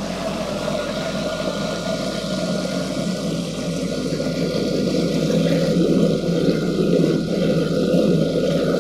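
Commercial bowl cutter (food processor) running at full speed, its blades pureeing a load of bananas: a steady whirring that grows gradually louder.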